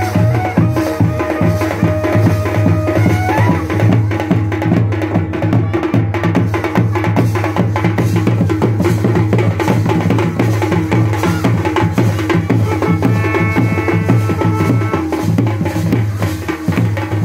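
Traditional Uttarakhand wedding band music: a large double-headed dhol beaten with a stick in a steady, driving rhythm, with low held notes and a melody played over the drumming.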